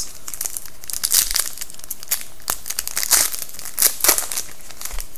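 Foil wrapper of a hockey trading-card pack being torn open and crinkled by hand. Irregular crackling, with louder crackles about one, three and four seconds in.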